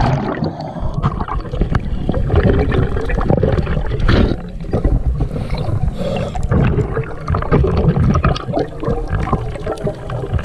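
Scuba diver breathing through a regulator underwater: irregular bubbling and gurgling of exhaled air with rushing water noise, heard through the camera's underwater housing, with a brief lull about four seconds in.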